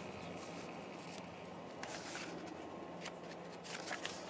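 Pages of a large picture book being turned: soft paper rustling, then a few crisp flicks near the end, over a steady background hiss.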